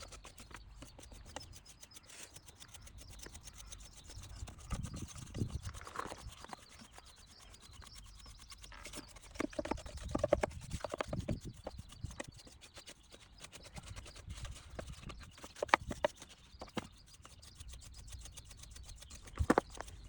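Irregular clicks, knocks and rubbing from car parts and tools being handled, with a few louder knocks.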